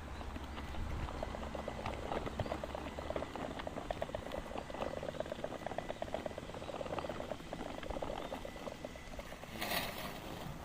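Husqvarna Automower robotic lawn mower cutting grass: a steady fine crackle of its blades through the grass, with a faint high whine, and a short loud hiss near the end.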